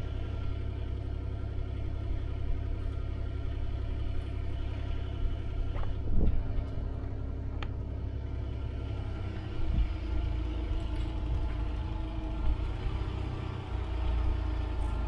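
An engine running steadily with a low rumble, with a couple of short knocks partway through.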